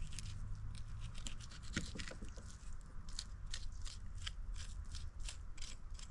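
Knife cutting and scraping along the bones of a skinned hare: a run of short scratchy clicks, about two a second in the second half, over a low steady rumble.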